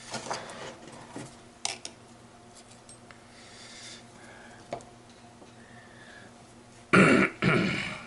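Light metallic clicks from gearbox parts and a C-clip being handled and worked onto the gear shaft, then two loud rasping scrapes a little before the end.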